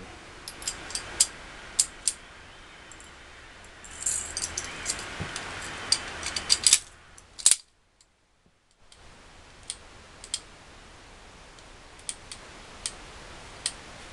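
Steel parts of an M1911A1 pistol clicking and clinking as it is reassembled by hand, with scattered sharp clicks and a busier run of metal handling around the middle. About eight seconds in the sound drops out for about a second.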